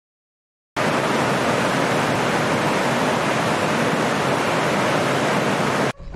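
Waterfall: a loud, steady rush of falling water that starts suddenly under a second in and cuts off abruptly near the end.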